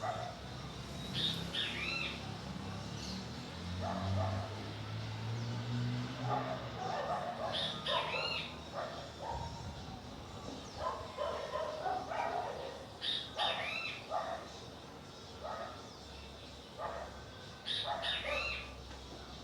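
Short animal calls: birds calling, with a group of higher arching calls coming back about every five seconds, and a dog giving short yips and barks in between.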